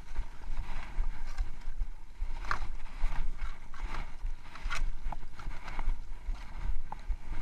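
Skis sliding and hissing over snow on a downhill run, with occasional sharper scrapes and wind rumbling on the microphone.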